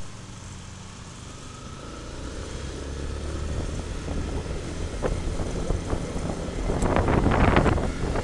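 Motorcycle engine running on the move, with wind rushing over the microphone that grows louder toward the end.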